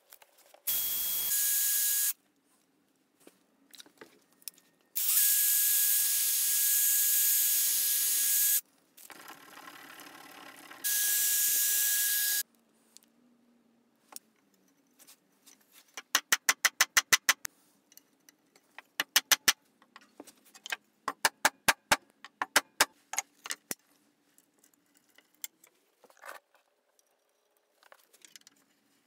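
Cordless drill motor running at a steady whine in three bursts, spinning a brass saw-nut screw held in its chuck against sandpaper to polish it. Later come several quick runs of ratchet clicks from the drill's keyless chuck as it is twisted.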